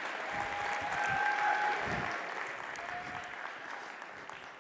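Audience applauding, fading away over the last two seconds.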